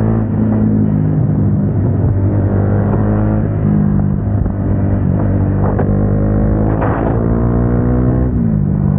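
Single-cylinder motorcycle engine running at steady road speed through an aftermarket exhaust, its pitch falling away near the end as the throttle is eased.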